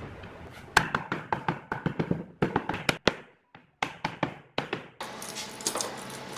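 Rapid series of sharp wooden taps and knocks, about four or five a second, as glued pine boards are knocked together to seat a tongue-and-groove edge joint, with a brief pause near the middle. Near the end come softer clicks as a steel bar clamp is fitted across the panel.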